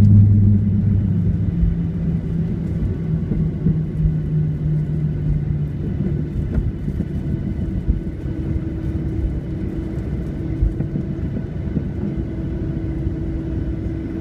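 Cabin noise of a Boeing 737-800 (CFM56-7B engines) slowing on the runway after touchdown: a low engine drone that is loudest at the start, then eases off and drifts slightly lower in pitch over the first several seconds, over a steady rumble of the wheels rolling on the runway.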